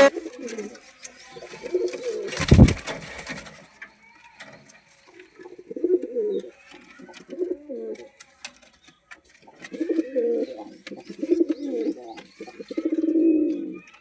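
Domestic pigeons cooing in a string of short, wavering phrases of about a second each, several in a row near the end. A loud thump about two and a half seconds in.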